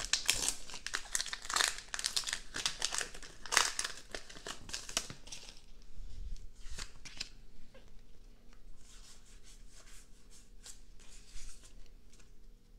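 Foil wrapper of a Pokémon TCG booster pack crinkling and tearing as it is opened: dense crackling for about the first five seconds, then fainter, scattered rustling.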